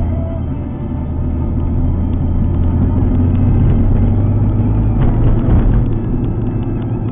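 Alfa Romeo 147 GTA's 3.2-litre V6 running steadily under way, a low engine drone mixed with tyre and road noise.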